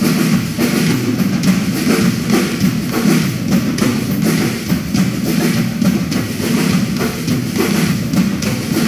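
Drum kit playing a steady rhythm on bass drum, snare and cymbals.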